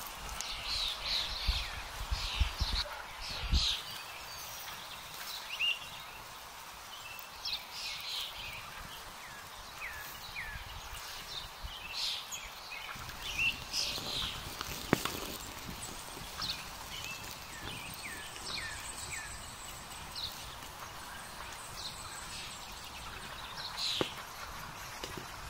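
Woodland birds singing and calling, with many short chirps and trills overlapping. A low rumble sounds in the first few seconds, and a few sharp clicks come later.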